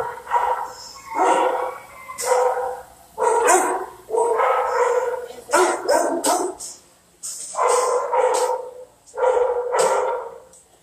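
A shelter dog in its kennel barking over and over, about one bark a second.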